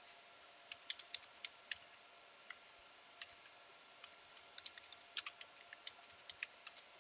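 Faint computer keyboard keystrokes, typed in short irregular runs.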